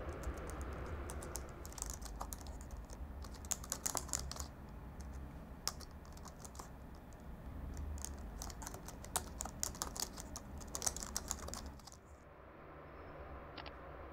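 Typing on an Apple MacBook laptop keyboard: runs of quick key clicks in bursts that stop about two seconds before the end, over a low steady hum.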